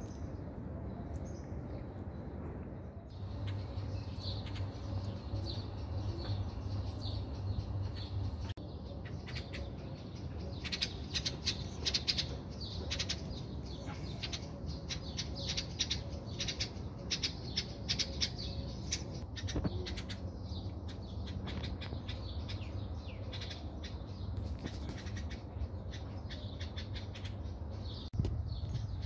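Small birds chirping in the background: many short, high chirps, busiest in the middle, with a low steady hum underneath during the first few seconds.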